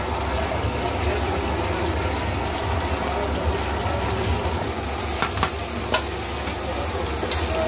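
Crab pieces sizzling as they fry in spiced oil in a metal kadai, with a metal spatula stirring and scraping the pan over a steady low hum. A few sharp clicks of the spatula on the pan come about five to six seconds in, and the sizzle turns brighter as chopped onion and green chillies go into the hot oil.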